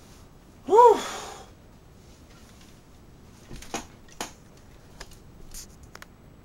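Plastic parts of a Transformers action figure clicking and ticking as a hand adjusts them, a few scattered clicks. About a second in there is a brief, louder tone that rises and falls, with a hiss.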